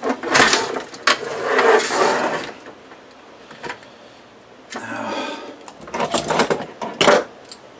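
Hands working a Romex cable connector and a sheet-metal light fixture: rustling and scraping of metal parts, then a few sharp clicks and knocks about six to seven seconds in.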